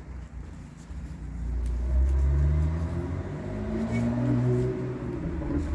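A car driving past, its engine and road noise swelling about a second in and staying loud, with the engine note shifting in pitch.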